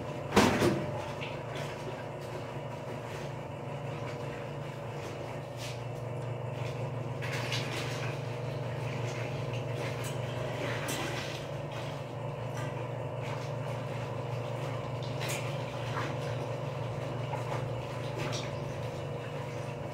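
A steady low machine hum, with occasional soft rustles and small clicks as wet laundry is handled and hung on a line.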